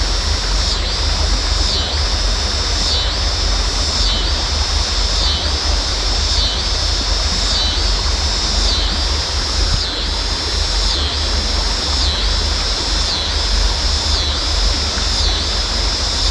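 A steady outdoor insect chorus in a high buzzing band that swells and dips about once a second, over heavy low wind rumble on the microphone and an even hiss of moving air and water.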